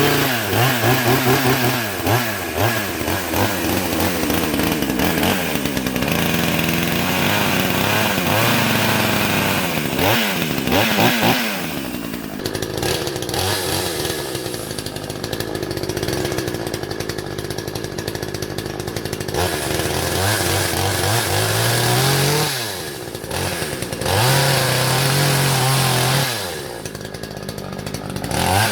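Hyundai HYC6200X 62cc two-stroke petrol chainsaw running, revved up and down repeatedly in quick throttle blips, with a longer stretch of lower, steadier running in the middle before it is revved again.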